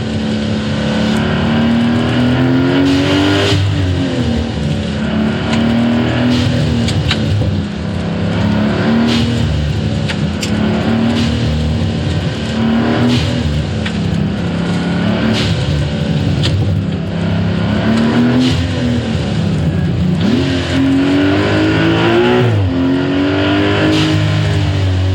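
Porsche 911 Turbo S (992.2) flat-six with a SOUL turboback exhaust, driven hard: revs climb and drop repeatedly through pulls and gear changes. Short sharp clicks sound between the pulls, with one quick steep climb in revs near the end.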